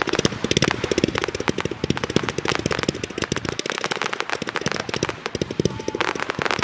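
Class C consumer fireworks going off in quick succession: a dense, continuous string of pops and bangs as shells launch and burst.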